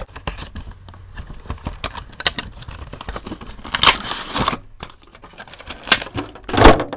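A Funko Pop box being opened. First come small clicks and scrapes as a blade slits the tape on the cardboard box. Then the box and its clear plastic insert are slid apart and handled, with a rustle about four seconds in. The loudest plastic crinkle comes near the end, as the vinyl figure is pulled from the insert.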